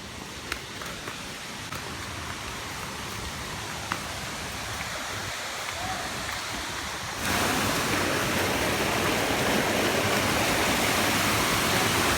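Steady rush of a waterfall, slowly growing louder and then jumping sharply louder about seven seconds in. A few faint clicks sound in the first few seconds.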